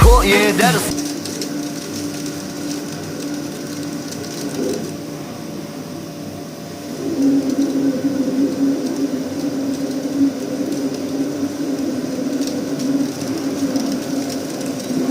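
A machine running steadily with a constant hum, growing louder about seven seconds in. The tail end of a sung music track cuts off at the very start.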